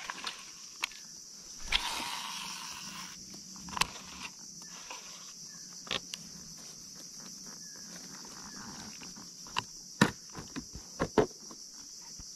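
A steady high-pitched chorus of insects over the water, with scattered sharp clicks and knocks as a baitcasting reel and fishing tackle are handled. There is a brief rustle about two seconds in, and the loudest clicks come about ten seconds in.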